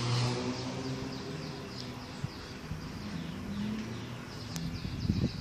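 A soft, low melody of held notes that change pitch every second or so, with many short high bird chirps behind it.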